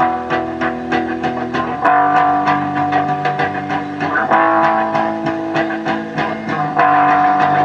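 Guitar-led rock music with a steady drum beat, playing through a Philco Predicta television's speaker. It is loud but has little bass, and its chords change every couple of seconds.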